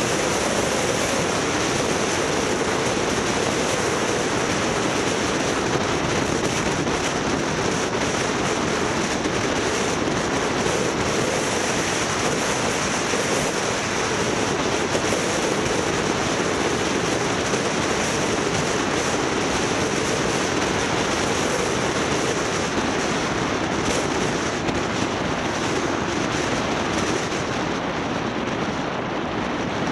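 Steady rushing wind and road noise from a moving vehicle.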